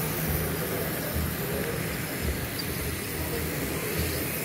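H0-scale model trains running along the layout's tracks, a low uneven rumble, with faint background voices.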